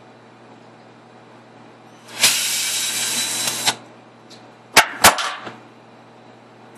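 Black & Decker cordless drill running in one steady burst of about a second and a half, followed a second later by two sharp clicks.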